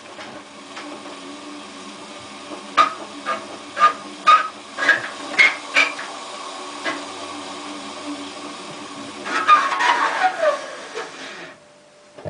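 Hotpoint Ultima WT960 washing machine drum being rocked back and forth to show what happens when it is out of balance. About seven clanking knocks come roughly twice a second, then a scraping screech slides down in pitch, over a steady hum that cuts off near the end.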